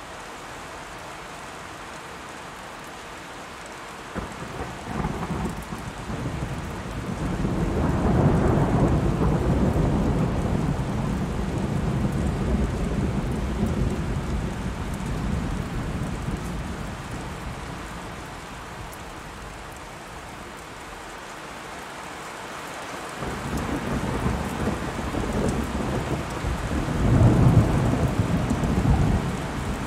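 Ambient rain-and-thunder soundscape: steady rain hiss with long low rolls of thunder. One roll builds a few seconds in and slowly dies away, and a second, louder roll swells near the end.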